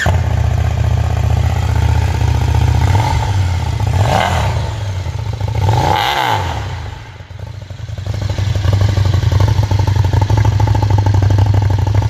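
Brabus 1300 R's 1,301 cc V-twin running just after start-up, loud through its exhaust, revved twice, about four and six seconds in.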